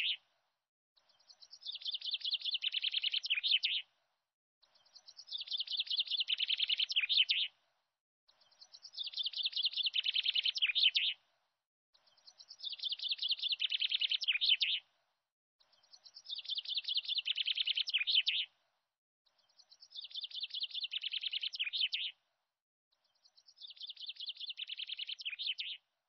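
Bird song: a rapid trill of high chirps, each phrase about two and a half seconds long and swelling slightly, repeated seven times at even spacing with silent gaps between.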